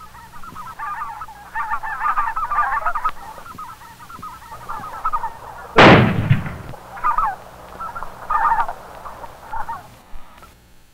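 A flock of geese honking in bursts of overlapping calls. A single loud shotgun blast about six seconds in dies away within half a second, and the honking goes on after it.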